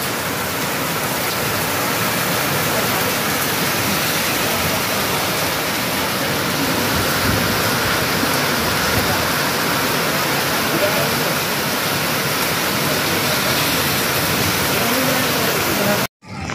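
Heavy monsoon rain pouring down on a road and bare ground, a loud steady hiss that cuts off suddenly near the end.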